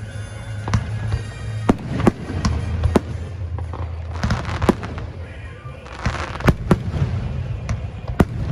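Aerial fireworks bursting: a string of sharp bangs, with two spells of fizzing crackle about four and six seconds in.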